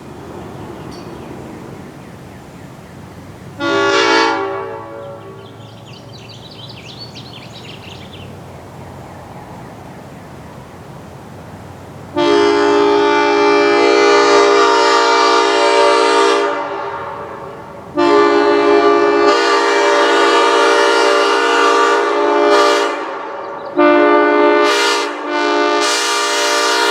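Multi-chime railroad air horns sounding a chord: one short blast about four seconds in, then three long blasts in close succession from about twelve seconds in.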